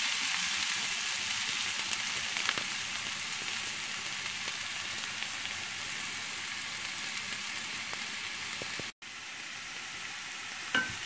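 Chopped onion and garlic sizzling in hot oil in a non-stick frying pan, a steady hiss with faint scattered crackles; the onion is being lightly softened, not browned. The sound cuts out for an instant about nine seconds in.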